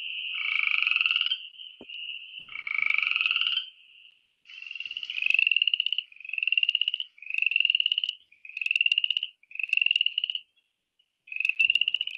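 Upland chorus frogs calling: about ten long, rising creaks, each about a second long, one after another, like running a finger along the teeth of a comb. In the first few seconds two frogs call over each other.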